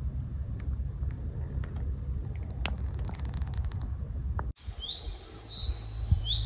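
Low rumbling night ambience with a few sharp crackles from a small campfire. About four and a half seconds in the sound cuts off, and birds start chirping over a low steady hum.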